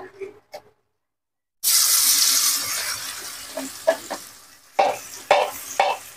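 Ground spice paste of shallot, garlic, ginger and candlenut hitting hot oil in a pan. The sizzle starts suddenly and loudly about a second and a half in and slowly dies down. Before it come a few clicks of a spoon against the container, and after it a spatula scrapes and knocks the pan as the paste is stirred and sautéed.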